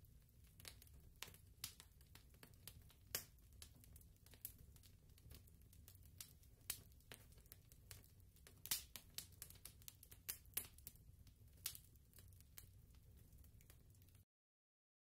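Faint crackle: scattered, irregular clicks and pops over a low steady hum, cutting off to silence about a second before the end.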